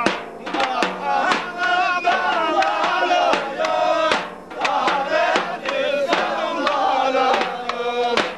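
A group of voices singing or chanting loudly together to music with sharp, regularly spaced beats.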